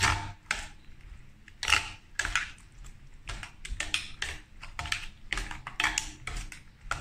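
Two metal spoons stirring a thick yogurt salad in a stainless steel bowl: irregular clinks and scrapes of metal on metal, several a second.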